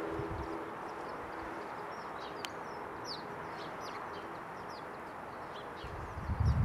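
Flock of house sparrows chattering: many short, high chirps in quick succession over a steady background hiss. Near the end a low rumble with a few thumps, the loudest sound.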